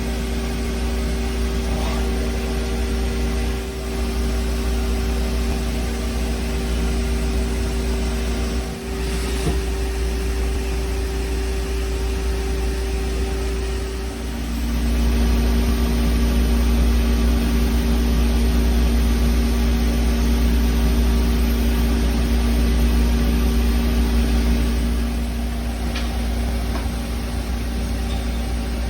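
Doosan Puma 2600SYII CNC lathe running under power: a steady machine hum over a low rumble, with two held tones. About halfway through the pitch of the hum shifts and it grows louder, then drops back a few seconds before the end.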